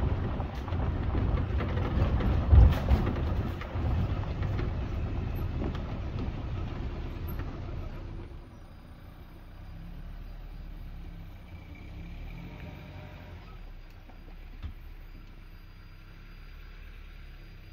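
Safari vehicle driving on a forest track, engine running under loud rumbling noise, with one thump about two and a half seconds in. About eight seconds in the noise drops away and the engine settles to a low, steady idle.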